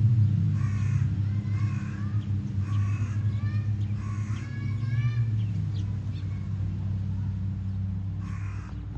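Crows cawing: about five harsh calls in the first five seconds, then a pause. A steady low hum runs underneath.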